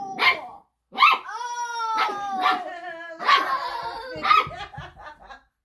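Nine-week-old standard poodle puppy barking at its own reflection in a mirror: a short yip, then a long drawn-out bark-howl sliding down in pitch, followed by a few shorter barks.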